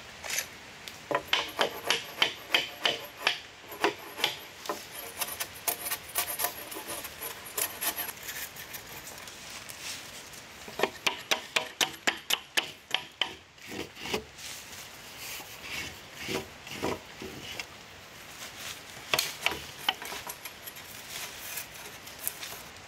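A hand tool working wood in quick, rhythmic rasping strokes, about three a second, in two runs with a short pause between them, then scattered single strokes.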